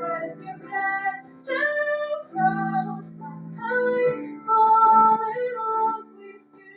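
Music: a woman singing a slow pop ballad over instrumental accompaniment, wordless or unclear held notes, the loudest about two-thirds of the way in before the voice fades.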